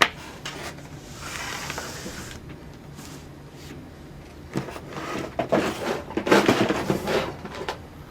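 Objects being handled and set down on a work surface: a click, a brief rustle, then a run of knocks and clattering about halfway through.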